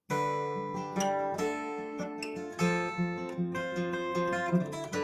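Acoustic guitar starting the instrumental introduction to a folk song, chords strummed and picked and left ringing. It comes in suddenly right at the start after a moment of silence.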